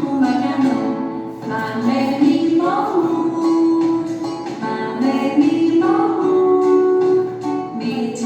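A woman singing a song with guitar accompaniment, the melody rising to long held notes about three seconds in and again near six seconds.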